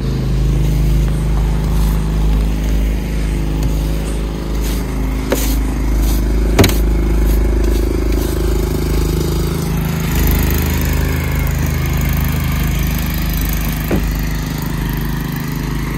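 A car running: a steady low engine and road rumble, with a few sharp clicks or knocks, the loudest about six and a half seconds in.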